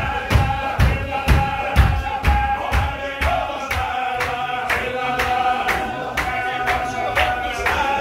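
Qadiri Sufi zikr: a group of men chanting, with one voice holding a long high note, over rhythmic stamping of feet on the floor at about two beats a second. The thumps of the stamping grow lighter after about three seconds.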